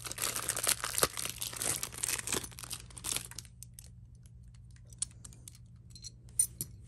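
Thin plastic bag crinkling and tearing as a packaged Beyblade top is unwrapped by hand. The crinkling stops about three and a half seconds in, followed by a few faint clicks as the top's parts are handled.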